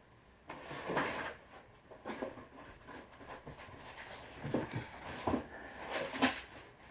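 Eating noises: a few irregular short clunks and rustles of food being eaten and dishes or utensils being handled.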